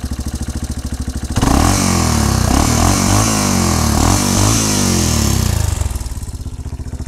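Yamaha Raptor 350 ATV's single-cylinder four-stroke engine idling, then revved hard for about four seconds about a second in, before dropping back to idle. The exhaust is loud, a bit too loud by the owner's account.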